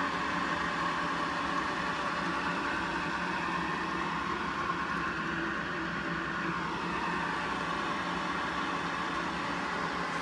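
Powermatic Model 1200 20-inch drill press running steadily, its motor and spindle drive giving a smooth, even hum.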